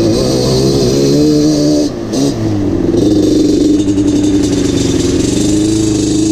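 Yamaha Banshee 350's parallel-twin two-stroke engine running under throttle, its pitch wavering up and down. It drops off briefly about two seconds in, then comes back and holds a steady speed.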